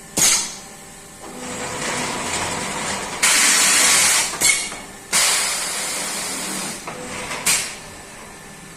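Compressed-air hissing from an FIBC big-bag belt loop centring and cutting machine: a sharp blast of air just after the start, then long hisses broken by short blasts as the machine cycles.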